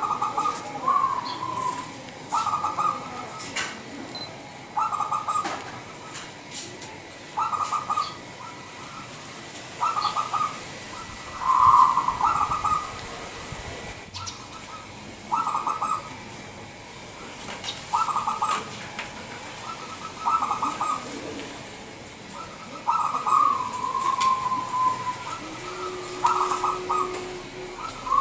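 Zebra dove (perkutut) singing its cooing song: short bursts of quick, rippling coo notes repeated about every two and a half seconds. A few phrases end in a falling trailing note, and one near the middle is louder and longer.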